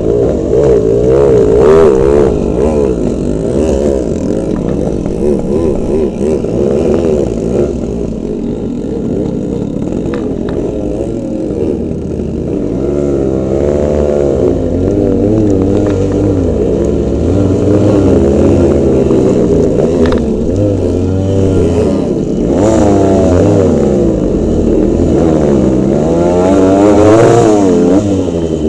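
Yamaha RX-series two-stroke motorcycle engines revving hard under load up a steep, rocky off-road climb. The pitch rises and falls again and again as the throttle is worked, with the hardest revving near the end.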